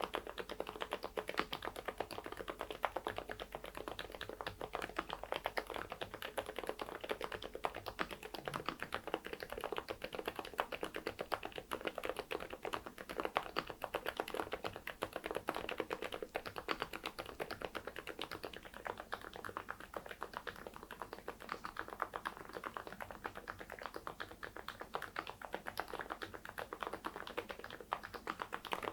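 Mechanical keyboard with dye-sublimated PBT keycaps in Cherry profile being typed on fast and continuously, a steady stream of key clicks and clacks.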